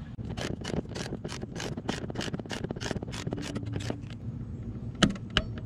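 Ratchet wrench clicking as a bolt on a car seat's bracket is turned, about five clicks a second for roughly four seconds, then a few louder, sharper clicks near the end.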